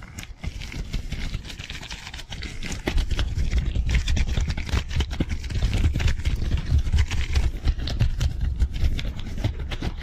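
Disposable gloves rubbing and crinkling in fast, aggressive hand movements close to a microphone: a rapid run of rustles, snaps and taps. It grows louder about three seconds in, with a dense, fluttering low rumble.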